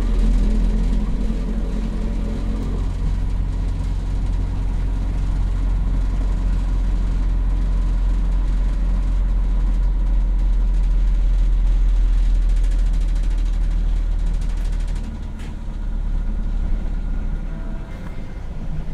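MAZ 206 city bus heard from inside the cabin while under way: a steady low diesel engine drone with road rumble. The drone drops in level about fifteen seconds in.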